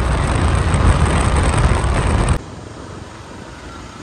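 Loud wind and road rush from riding along a street, with a deep rumble. It cuts off abruptly about two and a half seconds in, leaving a much quieter street background.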